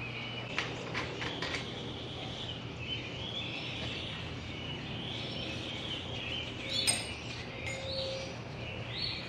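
Small birds chirping repeatedly over a steady low hum, with a few light metal clicks from parts being handled on a small-block V8 engine block on its stand. The sharpest click comes about seven seconds in.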